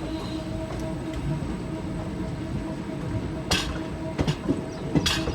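Indian Railways train running: a steady rumble with a steady hum, then a few sharp knocks in the last two seconds.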